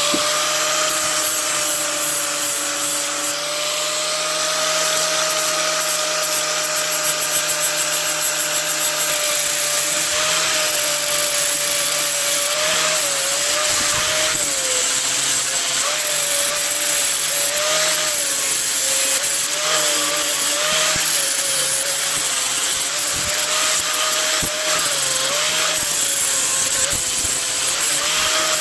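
Handheld power tool running at speed while cleaning up a freshly cast bronze piece, a steady whine over a rough rubbing hiss; the pitch dips briefly now and then as the tool bites under load.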